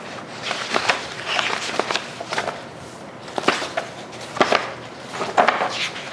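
Handling noise: scattered light knocks and clicks, irregularly spaced, with some rustling between them.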